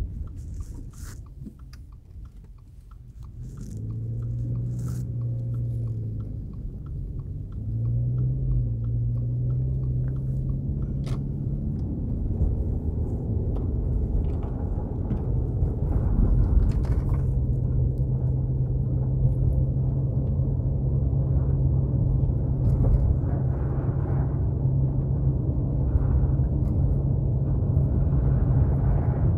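Subaru Impreza driving on a snow-covered road, heard from inside the car: tyres rumbling and crunching over packed snow. The engine hum comes in a few seconds in as the car pulls away, steps up in pitch, then holds steady at cruising speed.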